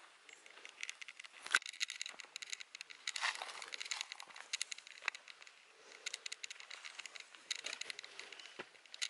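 Footsteps crunching on dry fallen leaves and loose stones of a rocky trail: irregular crackling and rustling.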